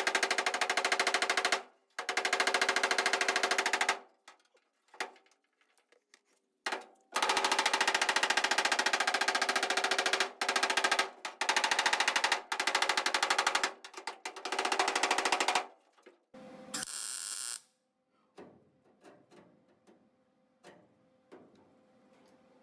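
Welding arc crackling and buzzing in short runs, about seven bursts of one to three seconds each with pauses between: weld tacks being laid on the sheet-metal patch around a VW Beetle's rear window lip. Near the end there is a brief hiss, then a few light clicks.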